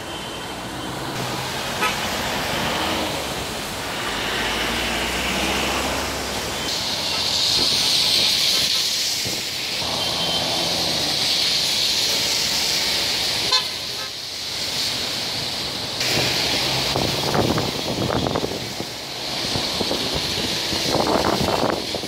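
Storm waves breaking against a seawall and concrete breakwater blocks in a continuous wash of surf. City traffic runs underneath, with car horns sounding.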